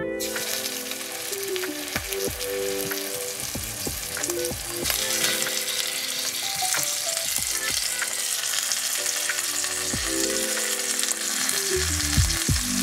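Flour-dusted oxtail pieces sizzling as they are laid into hot oil in a cast-iron Dutch oven to sear. The sizzle starts the moment the first piece goes in and gets louder about five seconds in as more pieces are added, with a few clicks of metal tongs, over soft background music.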